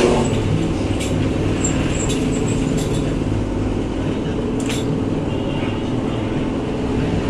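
Metal lathe running steadily with its chuck spinning a steel tube, with a few sharp clicks.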